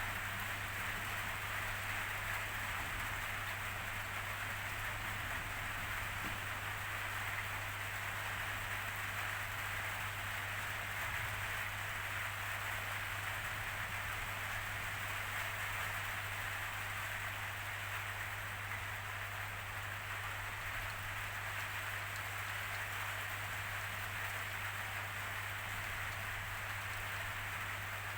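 Steady rainfall, an even hiss of drops on surfaces, with a constant low hum underneath.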